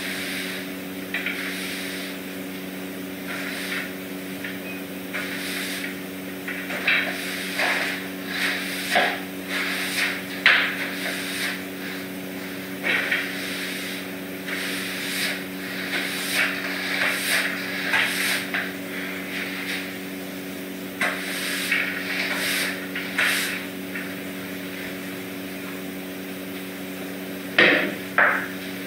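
Broom sweeping a hard floor in irregular scratchy strokes, with a few knocks from the broom and dustpan, over a steady low hum.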